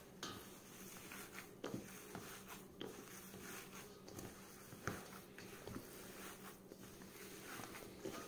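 Faint squishing of ground fava bean and chickpea falafel dough being mixed by a gloved hand in a stainless steel bowl, with a few light clicks.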